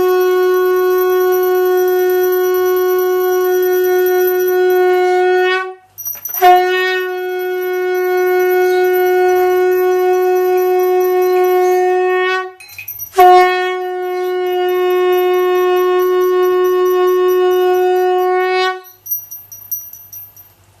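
Conch shell (shankha) blown in three long blasts, each about six seconds, holding one steady pitch with short breaks between them.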